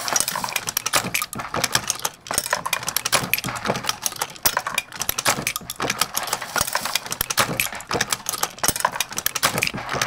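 Dillon 750 progressive reloading press cycling 9mm rounds with its automatic bullet and case feeders running: a continuous metallic rattle and clinking of brass cases and bullets.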